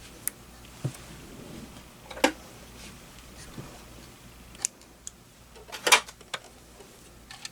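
Scattered sharp clicks and light knocks of small sewing-machine parts being handled while a bobbin is set up for winding on a Janome HD1000 manual sewing machine, the loudest a quick cluster about six seconds in. The machine itself is not running.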